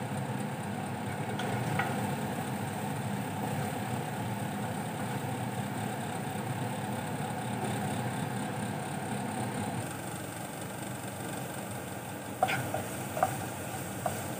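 Kitchen exhaust fan running with a steady hum while sliced onions sizzle gently in oil in a non-stick frying pan. In the last couple of seconds a wooden spoon stirs the onions, clicking against the pan a few times.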